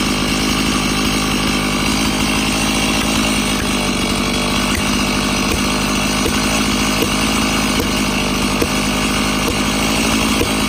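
Stihl MS391 two-stroke chainsaw running steadily, its engine note holding an even pitch.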